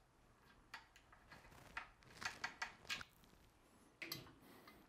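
Faint, irregular metal clicks and ticks of a 4 mm Allen key on a multi-tool working the dropout bolts snug on an e-bike's rear wheel. A short rustle and scrape comes about four seconds in.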